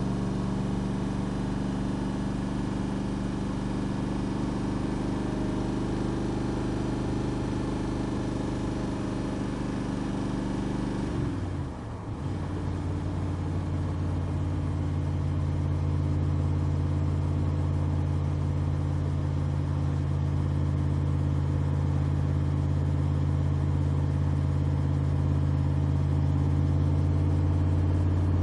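A Backdraft RT3 roadster's 427R V8 running under way, with a steady, deep engine note. About eleven seconds in the sound dips briefly and the pitch drops, then holds steady.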